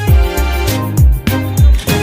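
Background music with a steady beat: deep bass-drum hits that drop in pitch, about two a second, under sustained pitched notes.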